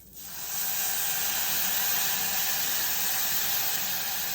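Rice frying in a hot pot, with a steady loud sizzling hiss that builds up within the first half second.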